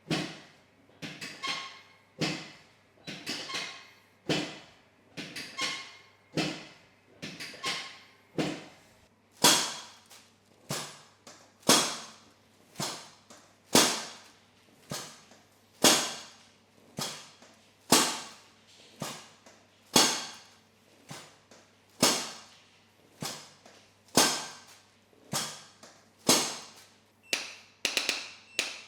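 A steady series of sharp knocks, about one a second, some in quick pairs, each ringing briefly, over a faint steady hum.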